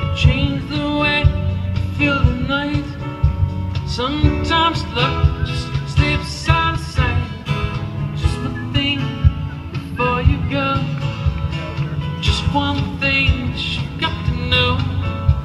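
Live band playing an unplugged set, acoustic guitar and percussion under a steady bass, with a singing voice, heard from the audience through the hall's PA.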